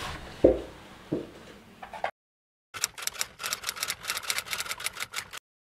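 Typewriter keys clacking in a quick, uneven run of clicks, about eight a second, for roughly two and a half seconds. Before it come two dull thumps and a fading hiss, then a short spell of dead silence.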